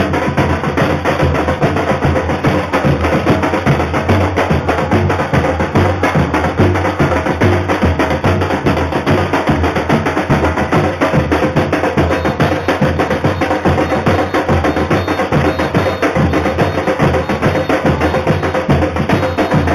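A carnival bloco's drum section (bateria) playing a steady, dense beat: deep bass drums under rapid higher strokes.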